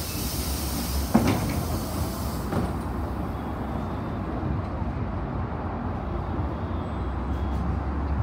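Inside a city bus: steady low engine and road rumble, with a hiss of air over the first two seconds or so. A sharp knock comes about a second in and a fainter one a little later.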